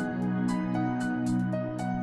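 Calm background music with held chords and a light, regular percussive tick.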